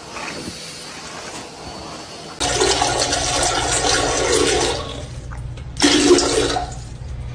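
A sudden loud rush of water starting about two seconds in and running for about two seconds, then two shorter surges.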